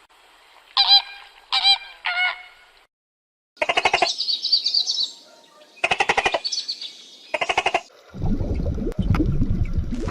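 Farm birds calling: three short, harsh, pitched calls, then three bouts of rapid pulsed calls. From about eight seconds in, a low rushing noise takes over.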